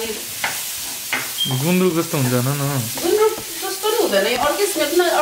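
Kinema (fermented soybeans) sizzling as it is fried and stirred in a pan, with a voice singing over it in held, wavering notes.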